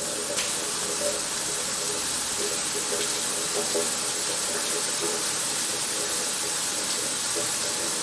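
Steady rush of white water pouring over rocks in a stream, an even hiss, with faint voices in the background.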